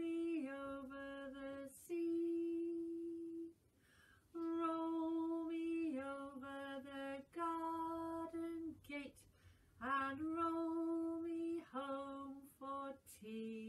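A woman singing a slow children's song unaccompanied, in long held notes, phrase after phrase with short pauses between.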